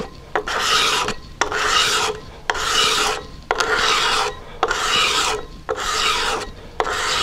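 Hand scraper with its edge fresh off the grinder, drawn along a hardwood blank in seven strokes, about one a second. Each stroke is a raspy scrape, the grinder burr cutting curled shavings rather than dust.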